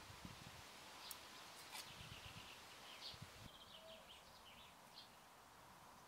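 Faint bird chirps, short high notes in loose clusters over quiet outdoor ambience, with a few soft low thuds from hands working loose garden soil.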